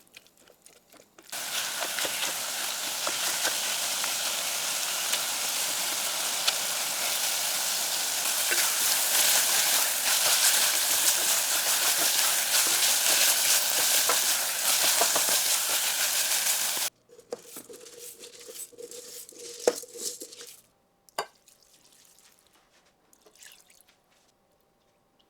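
Food sizzling in a hot pan: a steady hiss full of fine crackles that starts suddenly and cuts off abruptly about two-thirds of the way in. A few quiet clicks of kitchen utensils follow.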